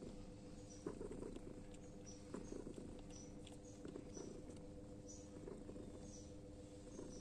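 Newborn kittens nursing: faint, short, high squeaks about once a second, with soft rustling.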